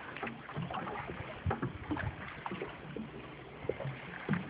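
Water lapping against the hull of a small fishing boat, with scattered light knocks and clicks.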